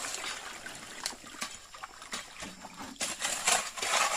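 Water splashing and trickling as it is poured by hand over a carpet sluice during gold panning, in uneven splashes with a louder run of splashing about three seconds in.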